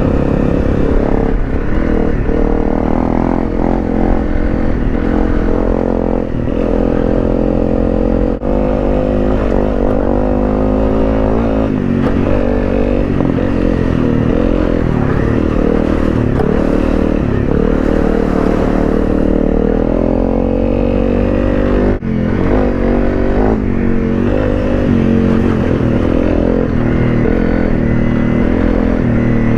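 Honda CRF250 Rally's single-cylinder engine running under load off road, its pitch rising and falling as the throttle opens and closes, with two brief dips in revs. Light clattering and scraping from the bike runs alongside.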